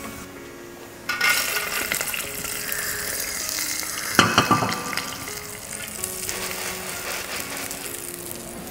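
Cashew nuts sizzling in hot ghee in a steel pan, browned and still cooking in the hot fat: a steady sizzle that starts suddenly about a second in. About four seconds in there is one sharp metal knock as the pan is handled.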